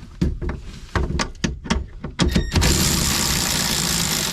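Metal clicks and knocks of tools and nuts being worked on the inverter's cable terminals, a quick rattle of clicks, then a loud steady hiss for about the last second and a half.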